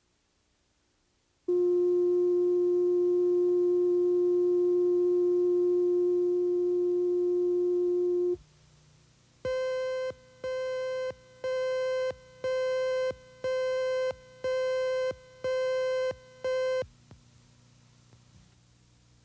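Tape leader tones: a steady test tone for about seven seconds, then eight short, higher-pitched beeps about once a second, counting down to the next segment.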